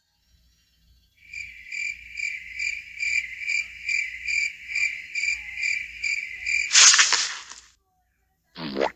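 Cricket chirping sound effect: an even, high-pitched chirp repeating about three times a second for several seconds. It is cut off by a short, loud rushing burst, and a brief squeal falling in pitch follows near the end.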